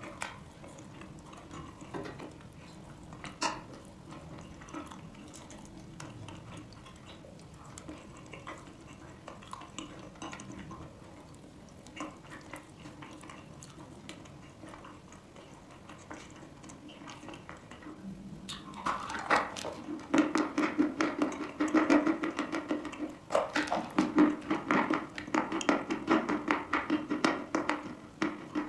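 Close-miked chewing and crunching of chalk in the mouth: soft and sparse at first, then from about two-thirds of the way in a dense, loud run of crisp crunches.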